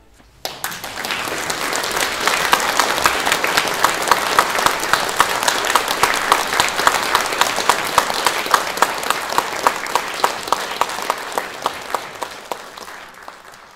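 Concert audience applauding, starting suddenly about half a second in and soon settling into rhythmic clapping in unison at about three claps a second, which fades away near the end.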